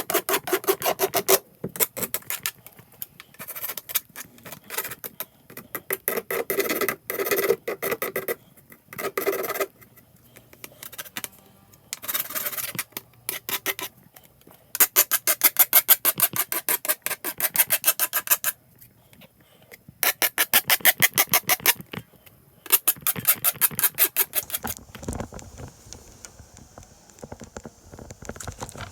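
Rapid scraping strokes in bursts of one to four seconds, with short pauses between bursts.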